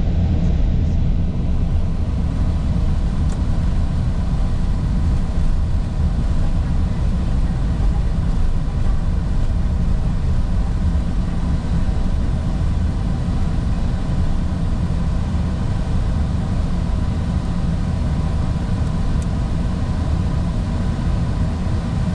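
Airliner taxiing, heard from inside the cockpit: a steady low rumble of the engines and the wheels rolling on the taxiway, with a faint thin steady tone above it.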